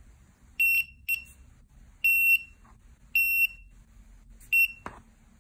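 Small piezo buzzer on an Arduino breadboard beeping at a high, steady pitch: five short beeps of uneven length and spacing. There is a single sharp knock near the end.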